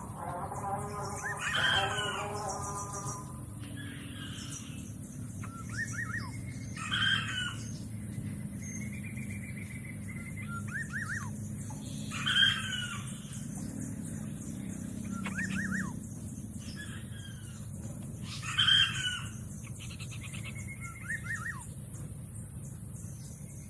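Birds calling: a rooster's crow fading out in the first few seconds, then a harsh call repeated about every five to six seconds, with short high chirps in between.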